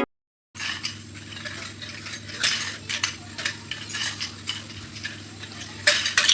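Light clattering and clinking of small hard objects being handled, many sharp clicks over a low hum, with a few louder clacks near the end.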